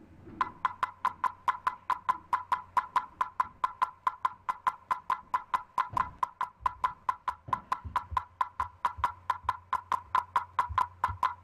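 Rapid, evenly spaced electronic clicks, about five a second, from a RuBee (IEEE 1902.1) base station reader. Each click marks one full two-way packet exchange with the tags sealed inside the steel vessel, so the tags are being read successfully.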